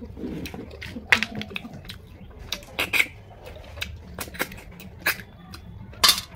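Cooked snails being sucked out of their shells: a series of short, sharp sucking slurps, about six of them a second or so apart.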